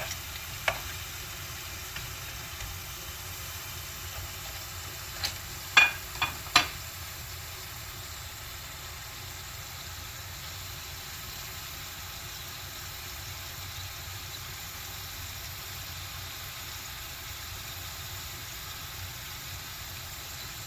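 Chilaquiles, tortilla chips and salsa, frying with a steady sizzle in a pan. A few sharp knocks, likely a utensil against the pan, come at the start and in a louder cluster of four about six seconds in.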